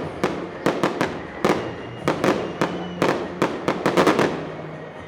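Fireworks shells bursting in quick, irregular succession, several bangs a second, each with a short echoing tail. The bangs stop about four seconds in.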